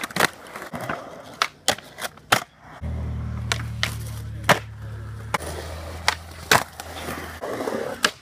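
Skateboards on concrete: repeated sharp clacks of boards being popped, landing, and trucks and wheels knocking and grinding on concrete ledges, over the rolling of urethane wheels. A low steady hum runs under it for a few seconds in the middle.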